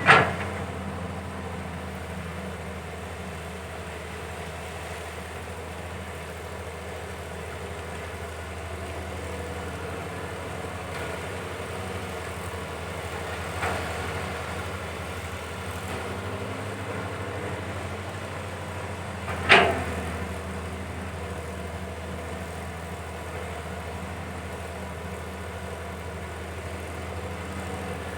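Caterpillar 320 hydraulic excavator's diesel engine running steadily while it digs, with three sharp metallic knocks: one at the start, one about halfway through, and the loudest about two-thirds of the way in.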